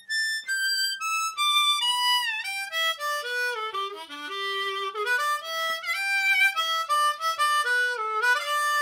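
Seydel 1847 Classic diatonic harmonica in C, in Wilde tuning, playing the major pentatonic scale as single notes. The notes step down from the top of the harp to the low end, then climb back up, with a few bent notes gliding into pitch, and it ends on a held note.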